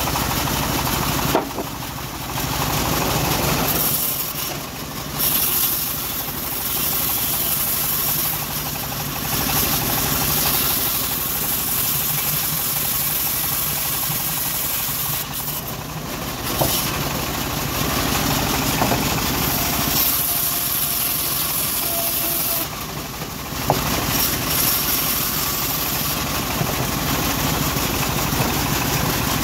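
Homemade band sawmill running, its blade ripping lengthwise through a teak board: a steady machine drone with a hissing cut on top that eases briefly a few times.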